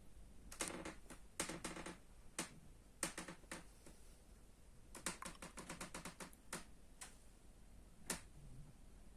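Timber-frame house creaking and cracking: sharp, irregular clicks and cracks from the structure, with a quick run of them about five seconds in.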